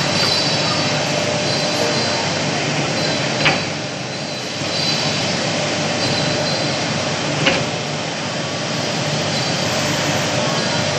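CNC wood lathe with a motor-driven flap sanding brush running, the brush sanding a spinning wooden spindle: a steady, dense machine noise. Two sharp clicks come through, about three and a half seconds in and again four seconds later, and the noise dips briefly after the first.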